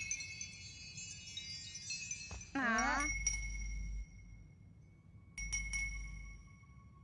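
Cartoon wind chime tinkling: clusters of high, ringing chime strikes, with a short wobbling sweep about two and a half seconds in and a fresh cluster of strikes about five and a half seconds in. This is the magic dream wind chime, rung in the wind to call sleeping children.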